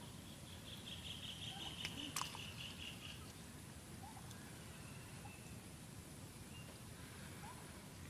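Faint outdoor ambience: a high, even trill for about two and a half seconds near the start, a few soft chirps, and two sharp clicks about two seconds in.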